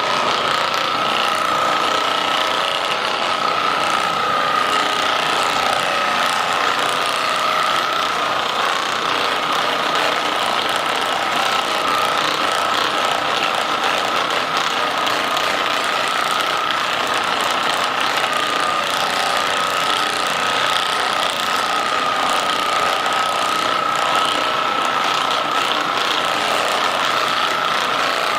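Handheld percussion massage gun running steadily at one unchanging pitch.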